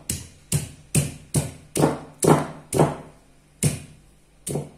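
Stone roller of an ammi grinding stone knocking down on small onions on the granite slab to crush them: a steady run of sharp knocks, about two a second, with a short pause a little past three seconds in.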